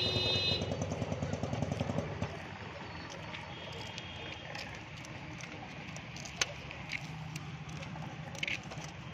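A motor vehicle, likely a motorcycle, running close by with a short horn toot right at the start, fading out after about two seconds. It leaves a steady outdoor traffic background with a few faint sharp clicks.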